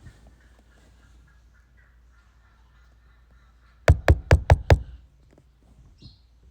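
Five loud knocks in quick succession on the car, about four seconds in, all within under a second.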